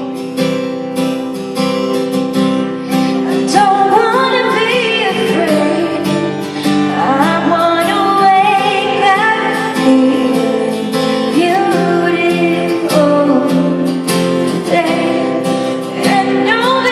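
Acoustic guitar strumming a steady accompaniment, with a woman's singing voice coming in about three and a half seconds in and sliding through long held notes over it.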